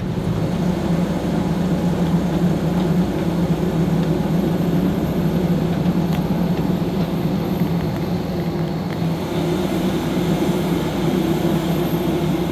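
Steady drone of a parked jet airliner on the apron: an even rushing noise with a constant low hum underneath, unchanging throughout.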